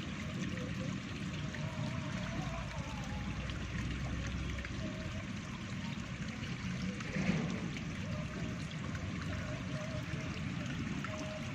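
Steady rush of running water, with one brief louder sound about seven seconds in.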